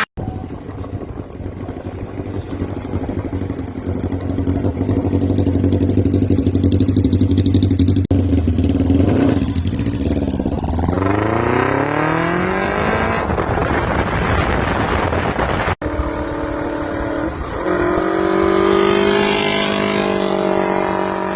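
Kawasaki KZ650 air-cooled inline-four motorcycle engine running steadily, then revving up with a rising pitch about ten seconds in. Two brief cuts break the sound, and it runs on at a steady, higher pitch near the end.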